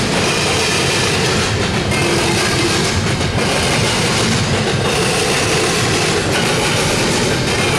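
Double-stack intermodal well cars rolling past: steady, loud wheel-on-rail noise with a regular clatter as the trucks go by, about every second and a half.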